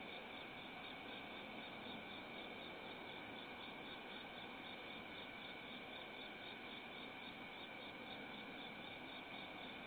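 Crickets chirping steadily in a continuous, evenly pulsing chorus over a faint hiss, heard through a doorbell camera's small microphone.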